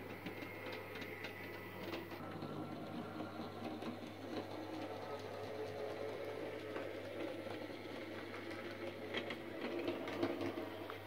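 TT-scale model train running on the layout: the small electric motor and gearing whir steadily, with scattered clicks from the wheels on the track, getting a little louder toward the end.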